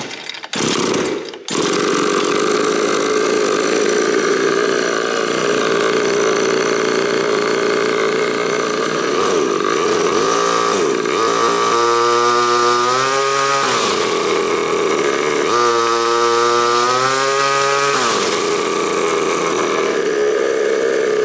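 Ported 50cc two-stroke kart engine with a small turbo fitted catches about a second and a half in and runs with a high, buzzy note. About ten seconds in it is blipped, then revved up and back down twice, each rev lasting a couple of seconds, before settling back to a steady run.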